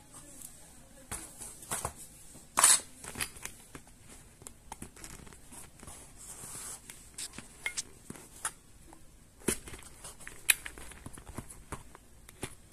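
Handling noise from a laptop LCD panel and its metal frame being worked loose with a utility knife and moved about: scattered clicks and taps, a sharp knock about two and a half seconds in and another a couple of seconds before the end, with a stretch of scraping in the middle.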